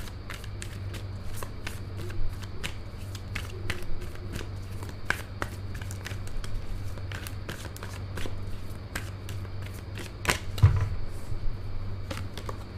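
Tarot cards being shuffled by hand: a steady run of light, quick card clicks, with a few louder taps about ten seconds in, over a low steady hum.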